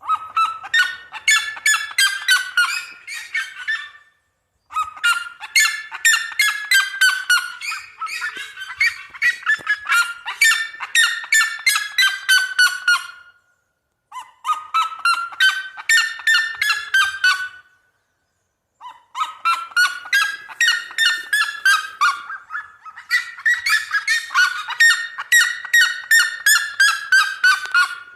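Red-legged seriema singing: a loud series of rapid yelping notes, about four a second, in long bouts separated by short pauses. In each bout the pitch rises briefly and then falls slowly.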